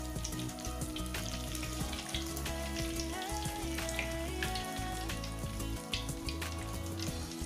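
Beaten egg frying in hot oil in a wok, sizzling with scattered crackles as it is rolled onto a skewer. Background music with sustained tones plays throughout.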